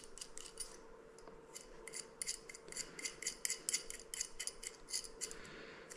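Small metal clicks and ticks of a light-fixture screw being turned by hand in its threaded fitting, a quick irregular run of them, thickest about two to four seconds in. The screw's threads run out near its top, so it stops threading there.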